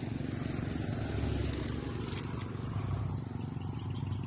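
Steady low electrical buzz with a rich stack of overtones from a homemade fish shocker's inverter, running while the probe is in the water.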